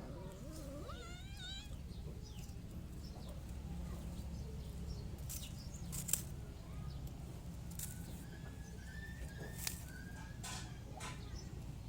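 A brief wavering high animal call about a second in, then fainter calls, over a steady low hum, with two sharp clicks later on.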